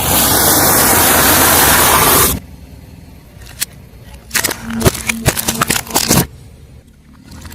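Car tyre crushing objects. A loud, even rushing noise lasts about two seconds and cuts off suddenly. After a short pause, a quick run of crackling, crunching snaps follows about four seconds in.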